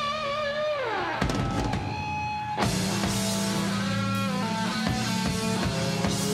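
Live rock band playing electric guitar and drums: a held note with vibrato slides down about a second in, then drum hits and sustained guitar chords.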